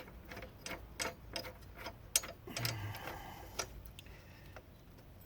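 Light irregular metal clicks and ticks of hand tools on the mower's blade and bolt as the replacement blade is fitted and fastened, with one sharper click about two seconds in and a brief scrape around three seconds.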